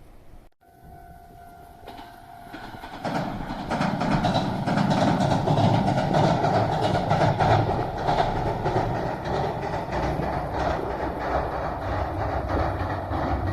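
A train on the JR Sanyo Main Line: a steady horn note lasting about two seconds near the start, then the train running past with rhythmic wheel clatter over the rails, building about three seconds in and continuing steadily.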